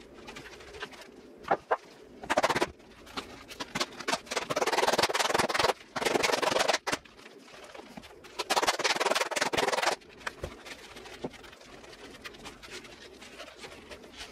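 A wet leather catcher's mitt being folded and worked by hand on a foam pad, with rubbing and handling noise in several bursts of a second or two and a few sharp knocks early on, as part of a break-in to form the hinge.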